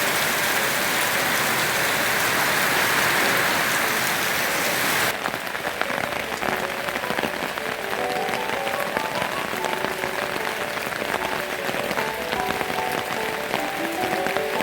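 Heavy rain falling, a dense steady hiss that cuts off abruptly about five seconds in. Lighter rain follows, with a simple background melody of short notes starting a couple of seconds later.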